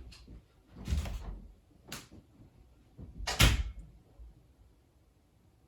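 A few knocks and thumps of someone getting up and moving about, with three separate strikes and the loudest about three and a half seconds in.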